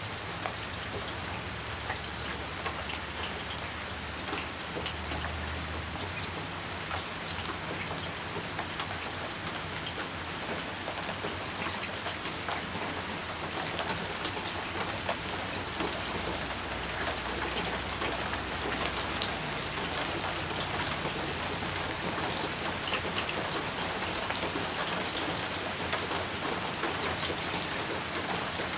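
Steady rain falling on palm fronds and foliage, a continuous hiss with many close drops ticking sharply through it.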